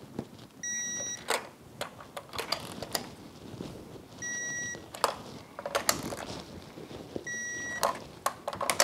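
Digital torque wrench beeping three times, each beep about half a second long and roughly three seconds apart, as it reaches the set 20 foot-pounds on each spark plug. Short clicks from the ratchet and socket fall in between.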